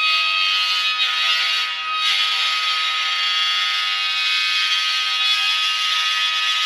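Bent aluminium stick carving a line into a sand and gypsum mixture: a loud, steady scraping screech with a held ringing tone over a harsh hiss, dipping briefly about two seconds in.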